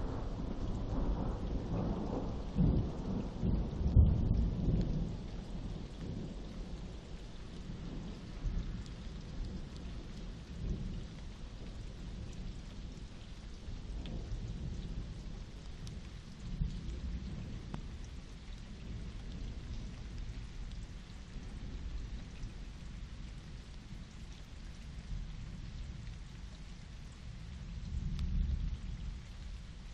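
Thunder rumbling, loudest about four seconds in and then dying away, with a second, weaker rumble near the end. Rain falls steadily throughout.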